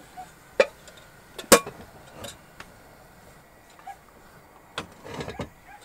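A few sharp metal knocks and clicks from a Ridge Monkey sandwich toaster pan being handled after a toastie is tipped out and the pan is set back on a gas hob, the sharpest about one and a half seconds in.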